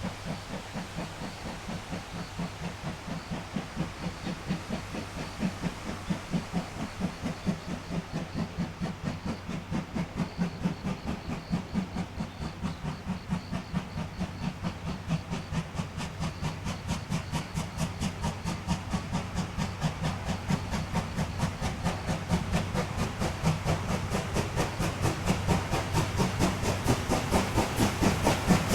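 Steam locomotive C11 207, a C11 tank engine, chuffing: a steady run of exhaust beats that grow faster and louder as it approaches under steam.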